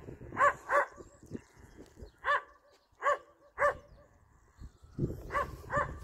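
A dog barking repeatedly: about seven short barks, in singles and quick pairs. Wind rumbles on the microphone at the start and again near the end.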